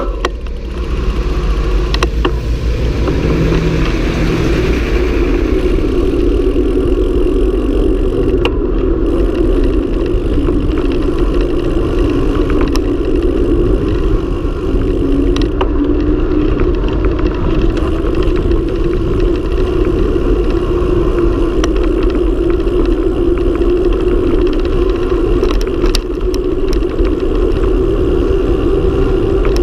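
Steady wind rumble on an action camera's microphone with tyre hum from a mountain bike descending fast on asphalt, broken now and then by sharp knocks from bumps and potholes in the road. In the first few seconds a parked tanker truck's engine is heard briefly as the bike passes it.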